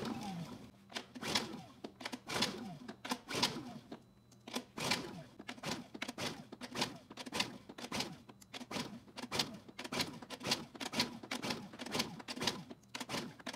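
Honda EU2000i generator's single-cylinder four-stroke engine being cranked by its recoil pull starter, over and over in short pulls about twice a second, each with a falling whir. It turns over but never fires.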